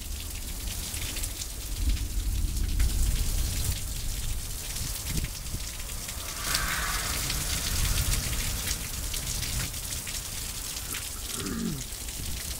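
Heavy rain pouring down steadily onto pavement and a flooding street. About halfway through comes a brief swell of splashing hiss as a car drives through the standing water.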